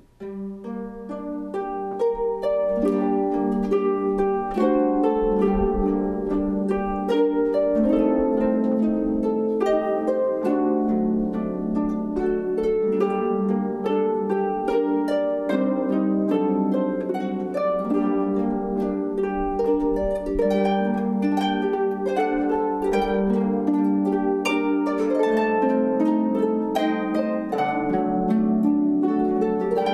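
Instrumental music on a plucked string instrument. Many quickly struck notes and chords ring and overlap, starting right at the beginning.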